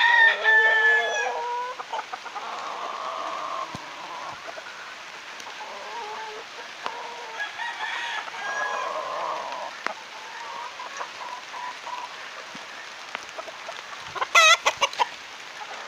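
Gamefowl roosters crowing: one close, long crow at the start, fainter crows from other birds through the middle, and a quick run of loud, short calls about fourteen seconds in.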